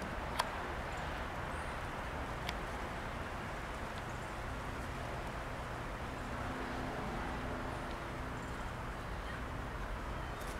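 Steady outdoor background hiss, with a sharp click about half a second in and a fainter one about two seconds later; a faint low hum joins about halfway through.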